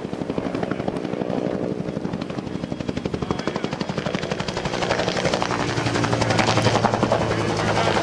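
Two-bladed helicopter flying past, its rotor beating in a rapid, even chop over a low engine hum. The sound grows louder as it comes closer and is loudest about two-thirds of the way in.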